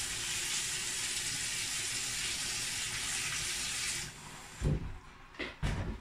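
Steady rushing hiss of water that cuts off suddenly about four seconds in, followed by two dull knocks.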